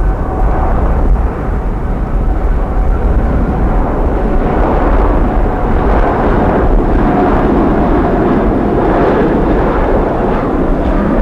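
Boeing 787's Rolls-Royce Trent 1000 turbofans at takeoff thrust during the takeoff roll: a loud, steady jet roar over a deep rumble, with a steady whine from the engine fans. The roar grows fuller about halfway through as the airliner passes.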